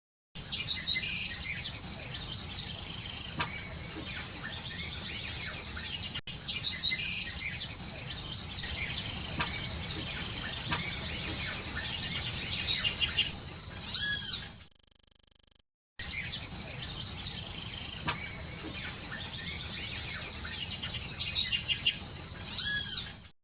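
Parrots chirping and whistling in quick short calls over a steady high buzz, with a loud rising-and-falling squawk just past halfway and again near the end. The sound cuts out for about a second after the first squawk, then the same run of calls repeats.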